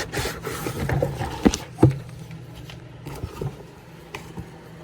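Handling noise from cardboard boxes: a few sharp knocks and taps in the first two seconds, then a couple of softer taps.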